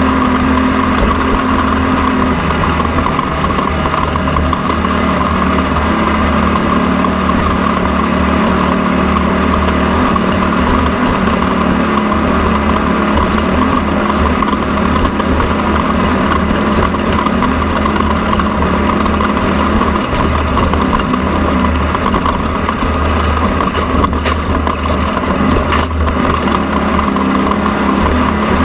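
A vehicle engine running steadily, with a constant low hum and a held tone that drops slightly in pitch about two seconds in.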